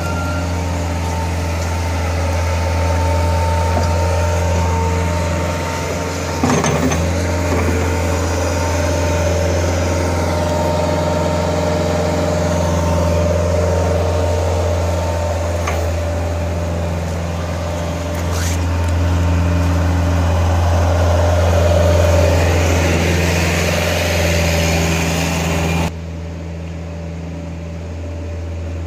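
Bobcat S130 skid-steer loader's four-cylinder Kubota diesel engine running steadily, with one sharp knock about six seconds in. Near the end the sound suddenly turns duller while the engine hum goes on.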